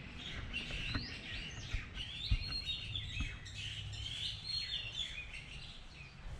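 Small birds chirping and calling in quick overlapping twitters, over a low rumble, with a single sharp knock about two seconds in.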